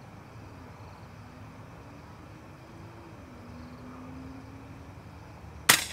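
A single sharp air rifle shot near the end, over a steady background hiss with a faint low hum.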